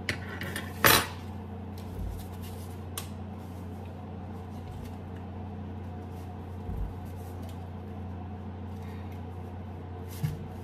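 Kitchenware being handled on a counter: a short clatter about a second in, then a few faint knocks and clicks, over a low steady hum.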